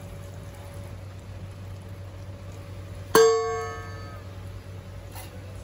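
A metal utensil striking the rim of a metal cooking pot once, about three seconds in, a bright clang that rings out over about a second. A faint steady hum runs underneath.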